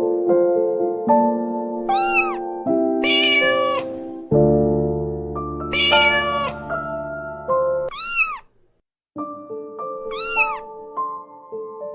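A kitten meowing about five times, high calls that rise and fall in pitch, over soft piano music.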